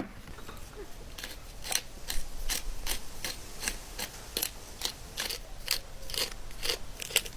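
A sharp knock, then a steady run of crisp cutting strokes, about two to three a second.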